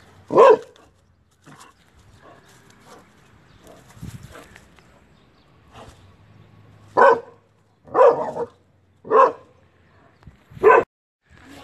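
Dog barking at a cobra: five short, loud barks, one near the start, then four more spaced about a second apart in the second half.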